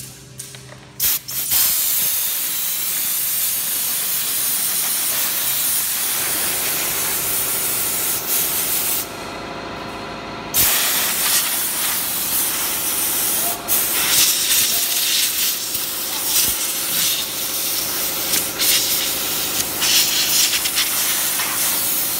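Compressed-air blow gun hissing loudly as it blows sawdust off a freshly CNC-routed MDF sheet. It starts about a second in, stops briefly partway through, then blows again.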